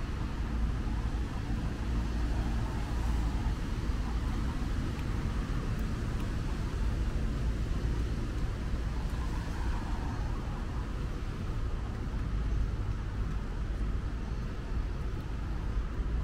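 Steady city traffic noise, an even low rumble of road vehicles with no single event standing out.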